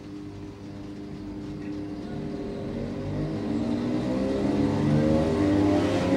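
ScotRail electric multiple unit pulling away from the platform, its traction motors whining in a pitch that rises as the train gathers speed, over a low running rumble, growing steadily louder.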